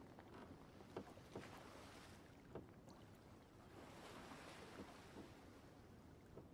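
Quiet ambience of a wooden fishing boat on the water: faint lapping with a few soft knocks of the boat's timbers or tackle.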